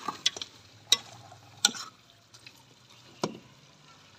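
Metal ladle scraping and knocking against the side of a pressure cooker as chicken and potatoes are stirred while being fried (bhuna), with a faint sizzle underneath. There are several sharp knocks, irregularly spaced.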